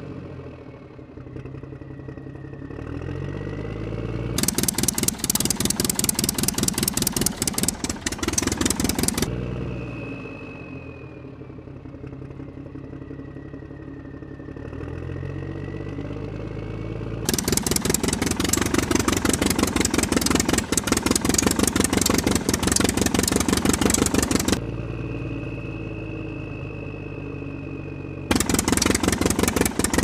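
Dubbed-in engine sound effect for a toy truck: an engine revving up in pitch, then running fast with a rapid, even clatter. The fast-running part cuts in and out abruptly three times.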